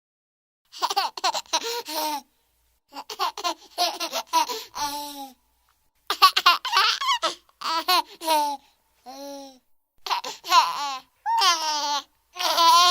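A baby's high-pitched voice laughing and babbling in short bursts, with brief pauses between them.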